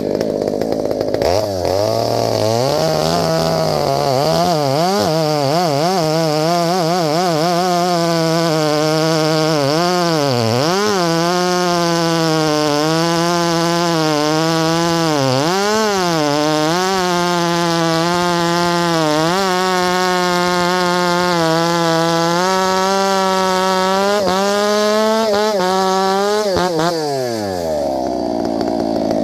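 Ported Farmertec G395XP chainsaw, a 94 cc two-stroke, revving up and running at full throttle. Its pitch sags briefly a few times, about 10 and 15 seconds in, then climbs a little higher before the throttle is let off near the end and the revs fall away.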